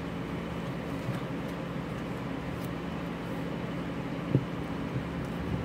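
Steady low background hum of room noise, with one short sharp knock a little after four seconds in and a few fainter small taps.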